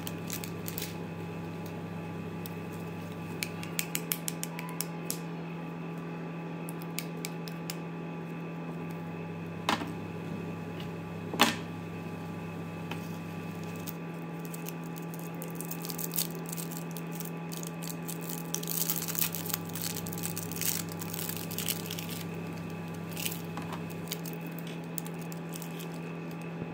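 Plastic and foil candy wrappers crinkling and clicking as chocolate wafers and toffees are handled and unwrapped, in scattered light ticks with two sharper clicks near the middle. Under it runs a steady low electrical hum whose deepest part cuts in and out every few seconds.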